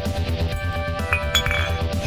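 Electronic background music with a steady, fast bass beat and held melodic notes.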